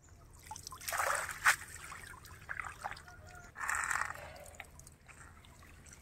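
Water splashing and trickling in two bursts, about a second in and again near four seconds, with a sharp knock during the first and small drips in between.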